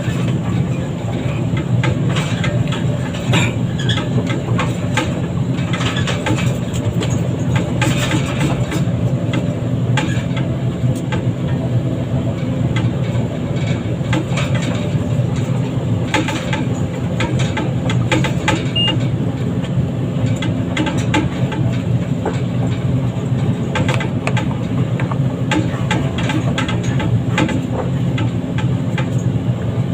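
Heavy diesel machinery running steadily with a low engine drone, with scattered metallic clanks and knocks.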